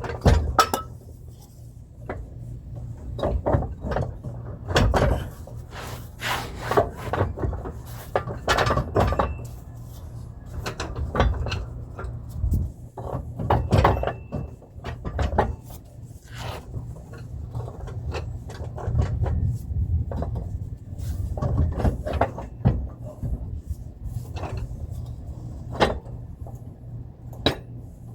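Irregular knocks, clanks and scraping of a heavy front differential being worked loose and maneuvered out past the subframe by hand, over a steady low hum.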